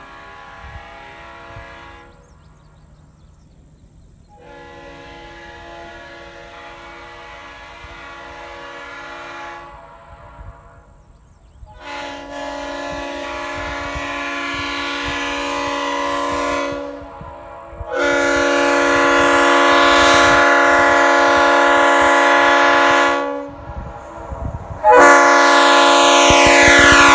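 Leslie RS5T five-chime air horn (Parsippany-built, bells 25, 31, 37, 44 and 55) sounding its chord in a series of long blasts, each louder than the one before. Near the end, in the loudest blast, the chord's pitch begins to fall as the horn passes by.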